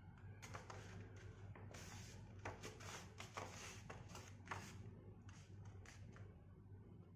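Faint rustling and crinkling of a sheet of paper as it is handled and folded, in short irregular crackles, over a low steady hum.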